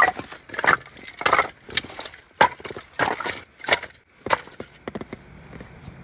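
Cardboard and camping gear being handled and set down on the floor of a canvas tent: a quick, irregular series of scraping, rustling and knocking noises that dies away about a second before the end.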